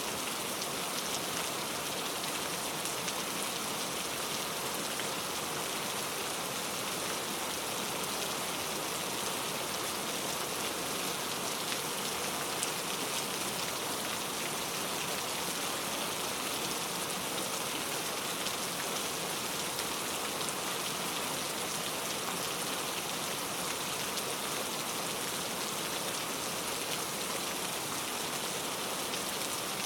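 Steady rain falling, a continuous hiss of many small drops pattering on surfaces, with no thunder.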